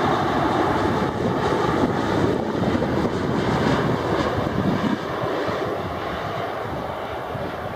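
Boeing 787-9 airliner's Rolls-Royce Trent 1000 jet engines as it passes low on final approach with its landing gear down: a loud, steady jet rumble that eases off a little about five seconds in as the aircraft moves away.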